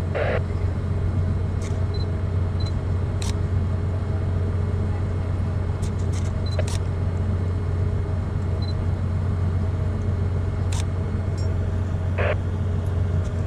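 Steady low machinery hum aboard a bulk carrier, with a few faint clicks and two short sharper sounds, one at the start and one near the end.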